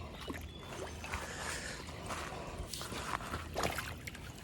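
River water sloshing and trickling at the shoreline, with scattered small wet handling sounds around a landed channel catfish.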